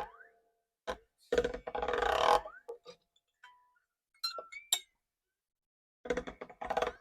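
New coated electric guitar strings being pulled and stretched: a few short scraping, clinking bursts as the strings are yanked against the frets, the loudest about a second in, with brief rising twangs as a pulled string rings.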